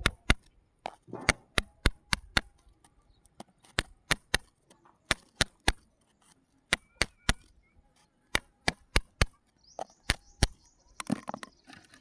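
A wooden stick jabbing and prying into pebbly sand and gravel around a buried stone: a run of sharp, uneven clicks and knocks, two or three a second, as the stick strikes the pebbles. A brief scuffle near the end as fingers dig into the gravel.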